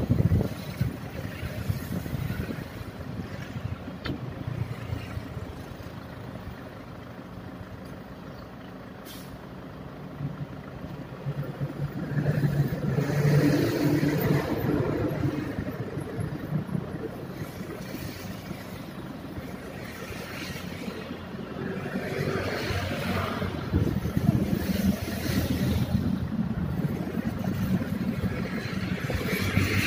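Road traffic passing on a highway: the rumble of vehicles swells and fades several times, loudest about 13 seconds in and again toward the end.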